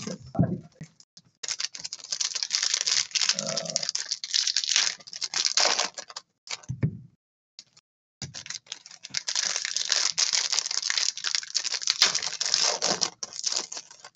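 Foil wrappers of Panini Prizm hobby card packs crinkling and tearing as they are ripped open by hand, in two long stretches of dense crackle with a short pause between.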